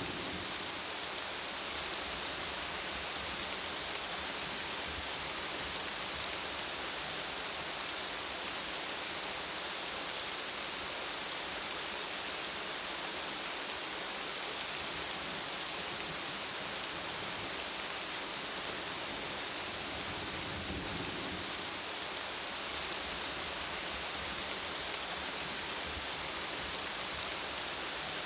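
Steady rain falling on hard surfaces, a constant even hiss, with a brief low rumble about three-quarters of the way through.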